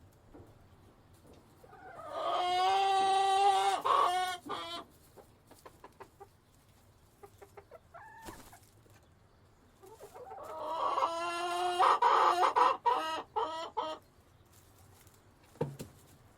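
Rooster crowing twice, each crow a long call of about three seconds that breaks up at its end, with a short faint call in between.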